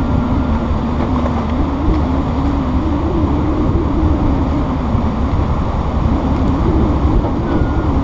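Tiller-steered outboard motor driving a jon boat at speed: a loud, steady engine drone whose pitch wavers slightly.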